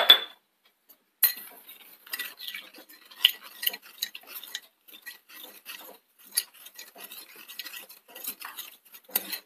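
A metal spoon stirring salt into water in a glass bowl, scraping and clinking against the glass in an irregular run. A sharp knock comes right at the start.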